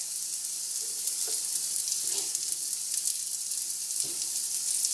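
Diced onion sizzling in butter and olive oil in a nonstick frying pan over medium heat: a steady frying hiss. A few faint scrapes of a wooden spoon stirring, one near the end.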